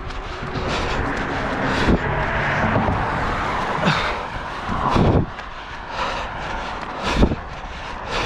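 Wind and movement rushing on a camera microphone carried on a trail run, with a few irregular thumps.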